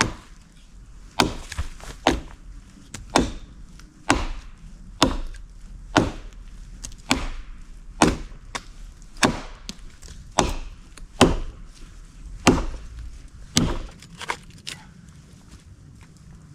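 Hand axe chopping into wood: a steady run of sharp chops, about one a second, that stops a couple of seconds before the end.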